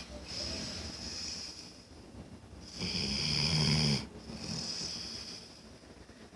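Snoring in slow breath cycles, each with a high whistling edge. The loudest breath comes about three seconds in and carries a low rattle.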